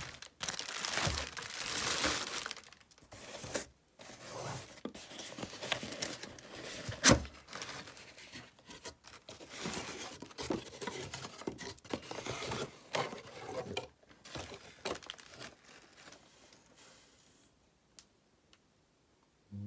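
Inflated plastic air-pillow packing crinkling and rustling as it is handled, along with cardboard box flaps being pulled open and scraped, with irregular sharp clicks and one loud snap about seven seconds in. The handling dies down over the last few seconds.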